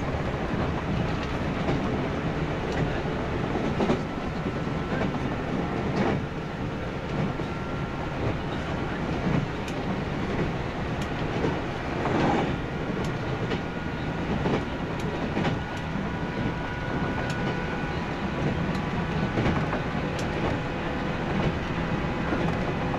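JNR 165 series electric multiple unit running at speed, heard from inside the motor car KuMoHa 165-65: a steady rumble with a faint motor hum and occasional rail-joint clacks, the clearest at about 4, 6 and 12 seconds in.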